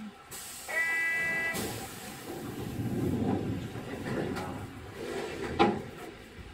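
Inside a Sapporo streetcar M100-class tram: a short electronic tone and a hiss of air about a second in, then the car's running rumble on the rails builds, with two sharp clicks of the wheels, the second and loudest near the end.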